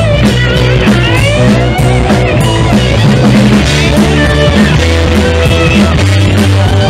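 Southern roots rock band playing: electric guitar lead lines gliding up and down in pitch over steady bass and drum kit.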